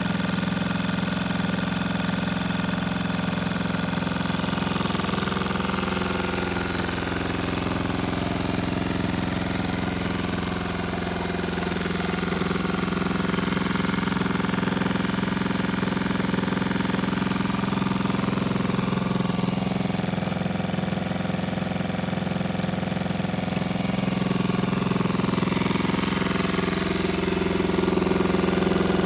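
Small single-cylinder four-stroke engine of a 110cc ATV quad idling steadily, getting a little louder near the end.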